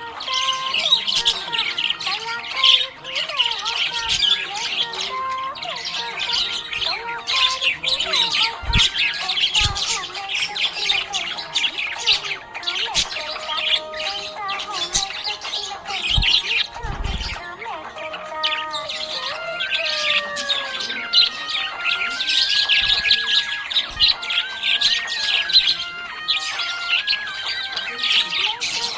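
Budgerigars chirping and chattering without a break, many quick high calls running over one another, with a few low thumps in the middle.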